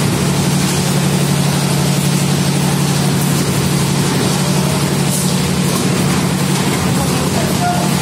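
Heavy engine of concrete-pouring machinery running steadily: a constant low drone under a wide hiss.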